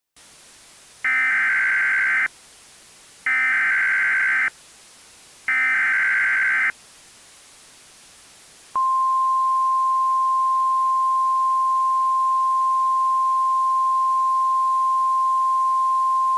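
Emergency Alert System SAME header: three identical bursts of warbling digital data tones, each about a second long with a second's gap between them. About nine seconds in, the steady 1050 Hz NOAA Weather Radio alert tone begins and holds, heralding a severe thunderstorm warning, with a faint hiss underneath.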